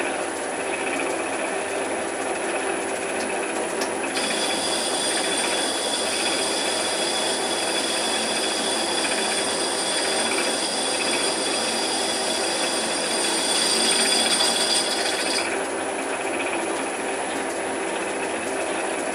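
Raglan 5-inch metalworking lathe running under power, a steady mechanical noise from its drive and gear train. From about four seconds in to about fifteen, a high whine joins the running noise and then drops away.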